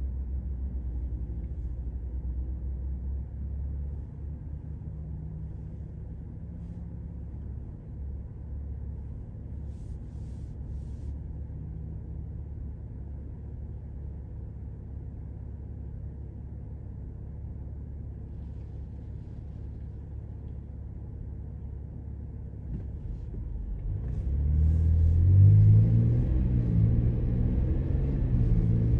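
Car engine idling while stopped, heard from inside the cabin as a steady low rumble. About five seconds before the end it grows louder and rises in pitch in steps as the car accelerates away.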